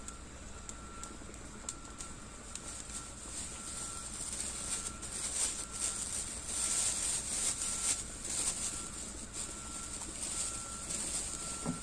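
Water boiling hard in an aluminium saucepan over a gas burner: a steady hiss that swells in the middle, with scattered small ticks.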